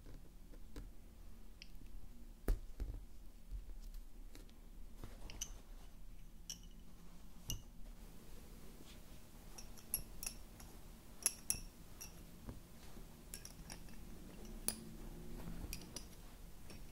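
Wooden lace bobbins clicking against one another as pairs are picked up, crossed and laid down while working Honiton bobbin lace. The clicks are light and scattered, some with a short bright ring, with the loudest about two and a half seconds in and a cluster between ten and twelve seconds.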